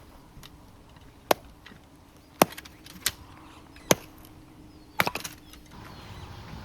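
Five sharp knocks, unevenly spaced about a second apart, the last followed by a brief rattle of smaller clicks.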